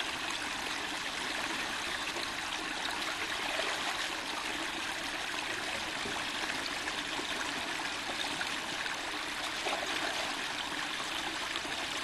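Shallow spring-fed stream flowing steadily over a forest floor, a constant even rush of water with no separate splashes.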